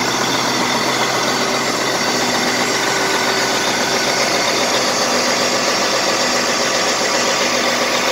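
John Deere 9470RX four-track tractor's diesel engine idling steadily, a constant running sound with a steady whine on top.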